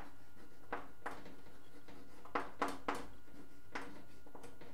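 Chalk on a blackboard: a string of short, sharp taps and scratches, several close together about halfway through, over a steady low background hum.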